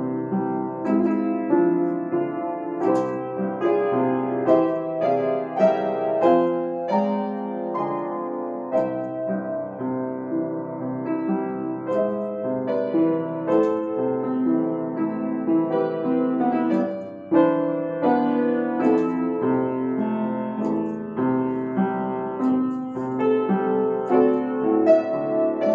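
Pearl River upright piano played solo: a continuous passage of chords and melody, mostly in the middle register, with a short break about 17 seconds in before the playing comes back strongly.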